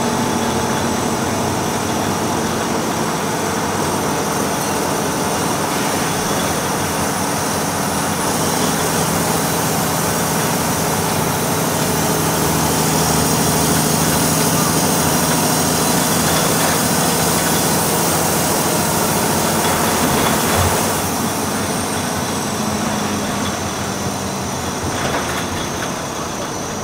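Volvo B6BLE single-deck bus's diesel engine running steadily, heard from inside the passenger saloon along with road and body noise. There is a single knock about twenty seconds in, after which the sound grows slightly quieter.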